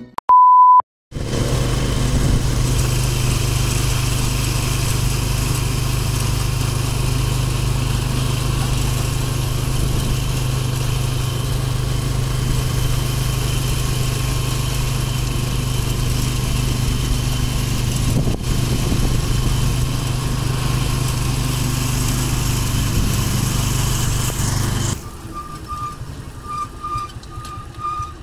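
A short, loud electronic beep, then a motorcycle-with-sidecar tricycle's engine running steadily as it rides, heard from the sidecar with road and wind noise. Near the end the engine noise drops off sharply and a quick run of faint short beeps sounds, about three a second.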